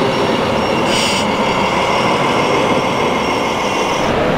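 Steady mechanical din of RC model trucks running in an exhibition hall, with a short hiss about a second in.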